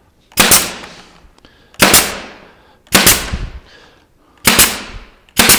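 Pneumatic 18-gauge brad nailer firing five times, about a second apart, driving 1¼-inch brads through particle board. Each shot is a sharp crack that fades over about half a second.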